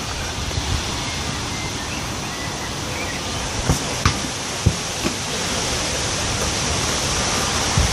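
Wind blowing across the microphone, a steady rushing noise, with a few faint knocks around the middle.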